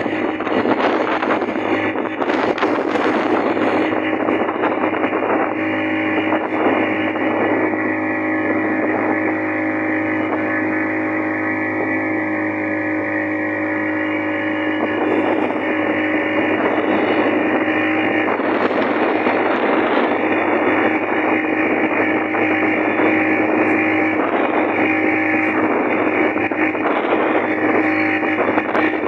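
Motorboat engine running steadily under way, its even drone mixed with a continuous rushing noise.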